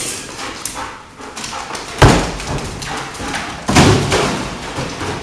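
A dog jumping onto a pile of empty cardboard boxes: two loud hollow thuds, about two seconds and three and a half seconds in, with the boxes rustling and knocking between them.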